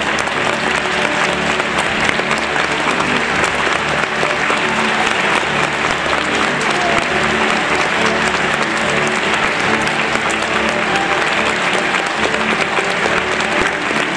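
Theatre audience applauding steadily, with music playing underneath.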